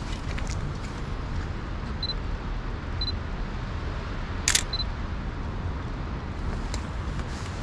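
Sony A7C camera: two short high focus-confirmation beeps about a second apart, then one sharp shutter click about four and a half seconds in, followed by another beep. A steady low city traffic rumble runs underneath.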